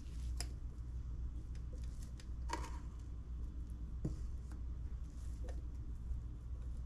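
Silicone spatula scraping thick cookie dough off a stand mixer's paddle beater and around its stainless steel bowl. A few light clicks and knocks against the metal, the sharpest about two and a half seconds in with a brief ring, over a steady low hum.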